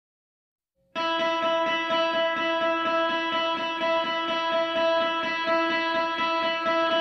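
Instrumental background music starting about a second in: a steady held tone with fast repeated notes over it.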